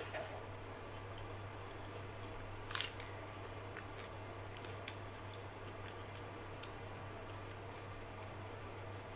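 Fingers mixing and squeezing wet rice and dal on a plate, with soft squelching and scattered small wet clicks and one louder click about three seconds in, over a steady low hum.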